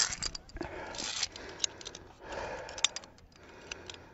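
Via ferrata carabiners clinking and scraping against the steel safety cable, a handful of sharp metallic clicks, as a climber moves along the cable.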